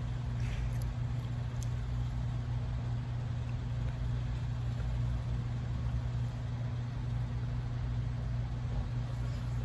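A steady low machine hum, as of a motor running without change, with a couple of faint clicks about half a second and a second and a half in.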